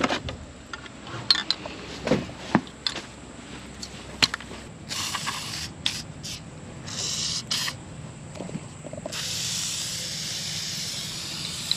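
Aerosol can of penetrating oil sprayed in short hissing bursts, then one longer spray of about two and a half seconds, onto a seized part. Before the spraying there are a few light knocks and clicks.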